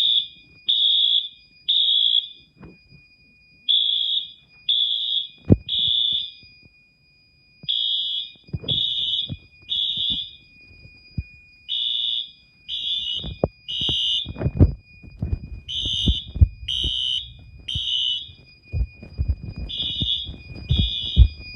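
Wheelock AS and NS fire alarm horns sounding the temporal-three evacuation pattern: three blasts about a second apart, a pause, then three again, over and over. The AS, set to high volume, totally overpowers the NS on low volume. A faint steady high tone runs underneath, with scattered thumps and handling noise.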